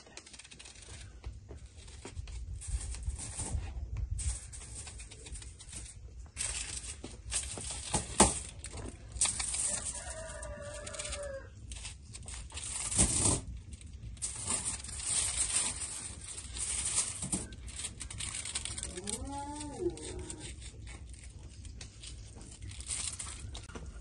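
Kitchen handling sounds: a knife slicing a red onion, onion rings set down on a foil-lined baking tray and the foil crinkling, with scattered sharp taps and knocks. Chickens cluck twice in the background, once about ten seconds in and again near twenty seconds.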